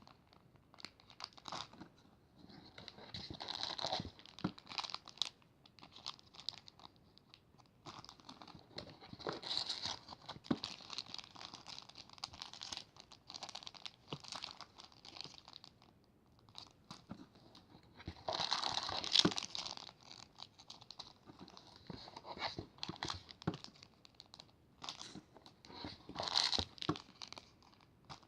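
Plastic packaging crinkling and rustling as it is handled and unwrapped, in irregular bursts, with a louder stretch about two-thirds of the way through.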